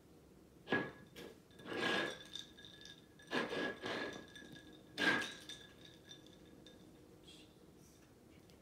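A cat pawing at water in a ceramic bowl: four or five clinks and knocks against the bowl with some splashing, each strike leaving a short ring from the bowl.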